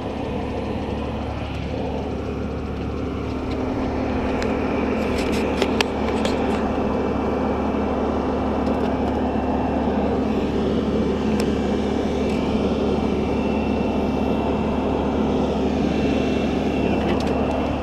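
Fire ladder truck's engine running steadily, driving the aerial ladder as it swings and moves, heard from the platform at the ladder's tip. It gets a little louder about four seconds in, and a few sharp clicks come around five to six seconds in.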